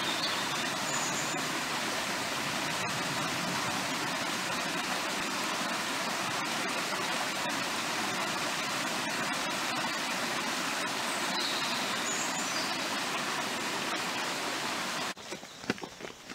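Small woodland stream running over rocks: a steady, even rush of water, with a few faint high chirps over it. About fifteen seconds in, the water sound cuts off, leaving a few light footsteps on a path.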